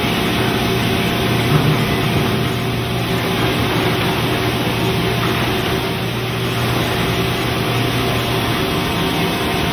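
Mazak Integrex i-400ST multi-tasking machine milling a pocket into a metal shaft with an end mill, its spindle at 1791 rpm, giving a steady hum of spindle and cutting noise.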